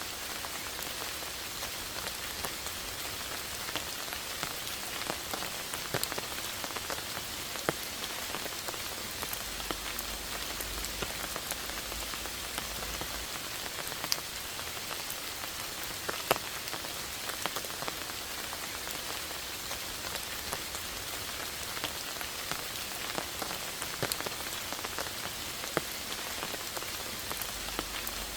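Steady rain falling as an even hiss, with single drops landing sharply and separately here and there.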